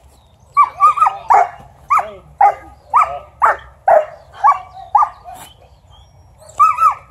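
A German Shepherd-type dog barking repeatedly at a helper during bite-work training: short, sharp barks about two a second, a pause of about a second and a half, then a couple more near the end.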